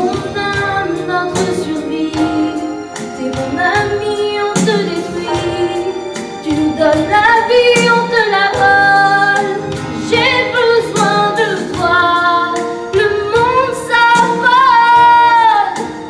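A girl sings a musical-theatre song over instrumental accompaniment. Near the end she holds a long note with vibrato.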